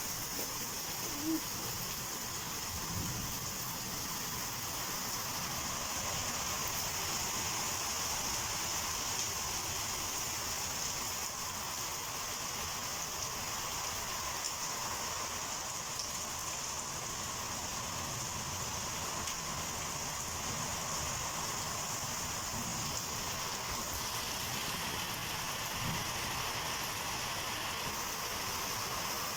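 Heavy rain falling steadily, an even hiss of rain with no let-up.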